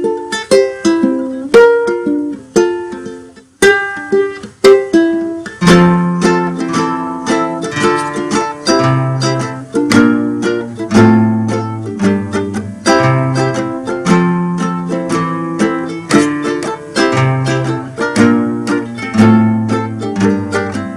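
Background music: a bright plucked-string tune of quick, decaying notes. A bass line comes in about six seconds in.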